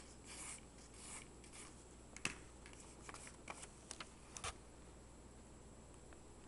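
Faint rubbing strokes on paper, about two a second, die out in the first second and a half. They are followed by a handful of light clicks and taps as the camera is handled over the drawing.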